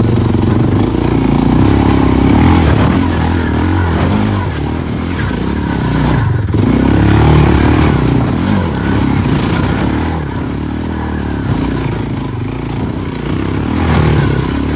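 Single-cylinder Suzuki dual-sport motorcycle engine revving up and down under load as the throttle is worked on and off.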